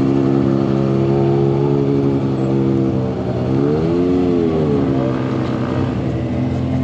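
ATV engine running steadily on the trail, its revs rising and falling once a little past halfway.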